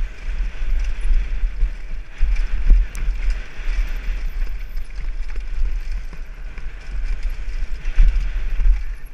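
Fast downhill mountain-bike descent heard from a helmet-mounted camera: wind buffeting the microphone in a heavy, pulsing rumble, over the hiss of tyres on rock and gravel and scattered knocks and rattles as the bike hits bumps.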